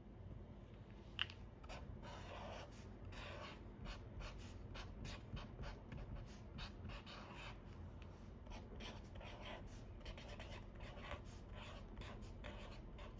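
Marker strokes on paper: a quick, uneven run of short scratching strokes as it draws, with one sharp tap about a second in.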